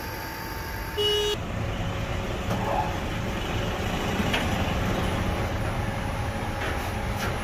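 Non-hydraulic surface grinder running with a steady machine hum while its table is inched from the push-button pendant. A short pitched tone sounds about a second in.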